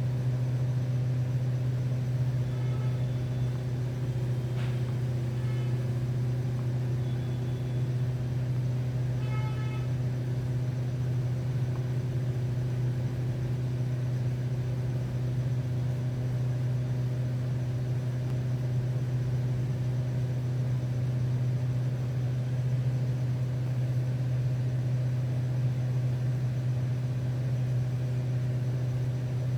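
A steady low hum, unchanging throughout, with a few faint short high chirps in the first ten seconds or so.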